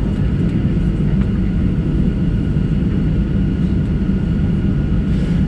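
Boeing 737-700's CFM56-7B turbofan engines at idle, heard inside the cabin as a steady low rumble with a faint constant whine above it.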